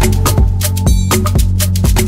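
Music with a steady, quick percussion beat over a sustained bass line.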